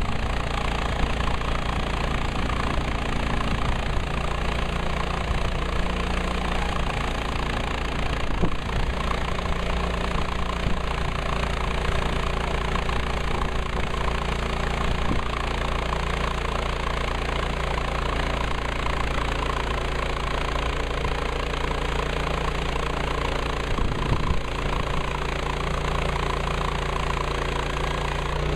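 The engine of a Woodland Mills HM130 Max portable bandsaw mill running steadily, with a few short knocks about a third of the way in, halfway through and near the end.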